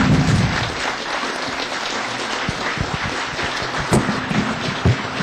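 Audience applauding, a dense patter of many hands clapping. A steady low tone comes in near the end.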